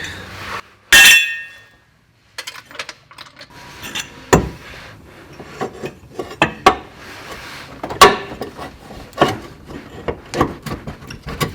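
Metal car parts and hand tools clinking, tapping and knocking as a part is worked into place and bolted on. About a second in comes a loud metallic clang that rings on briefly; after that come scattered sharper knocks, the strongest about four and eight seconds in.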